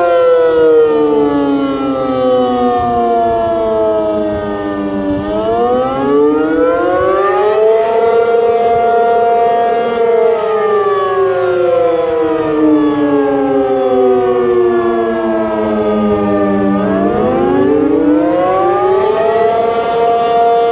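ACA P50 outdoor tornado warning siren sounding loudly during a test, a wail of several tones at once. Its pitch sinks slowly for about five seconds, sweeps back up over two seconds and holds. It then sinks again for about seven seconds and climbs once more near the end.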